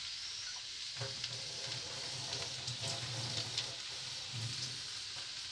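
Chopped onions, green chillies, garlic and ginger sautéing in hot oil in a steel kadai, a steady frying sizzle with a few faint ticks.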